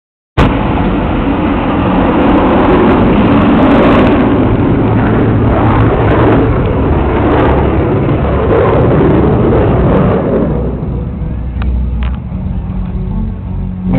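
F-16 fighter jet's single turbofan engine: a loud jet rush as the aircraft passes, fading away after about ten seconds.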